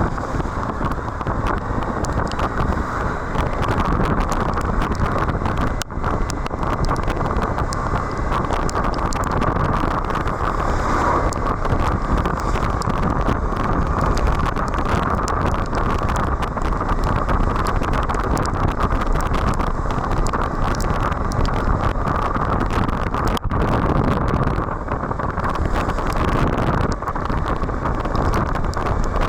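Steady wind rush on the microphone of a moving Suzuki V-Strom 1050XT motorcycle, with road and engine noise underneath and two brief dips.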